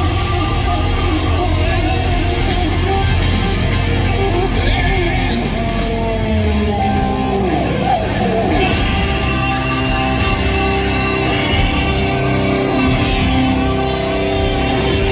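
Live hard rock band playing loud, distorted electric guitar over bass and drums, with sliding guitar notes about halfway through.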